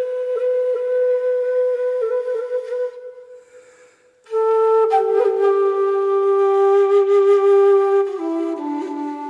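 Background music: a slow melody of long held notes on a flute-like wind instrument. It breaks off about three seconds in, comes back a second or so later, and steps down to lower notes near the end.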